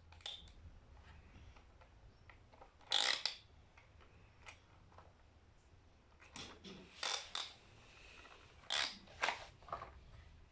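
Plastic toy parts being handled: a few short clicking, clattering noises, about three seconds in, around seven seconds, and twice near nine seconds.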